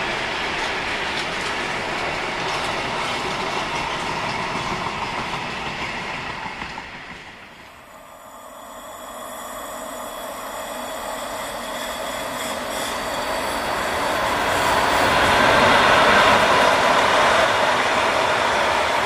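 Freight wagons rolling past on the track, a steady noise of wheels on rail. It fades away about eight seconds in, then another freight train draws closer and grows louder as its wagons pass.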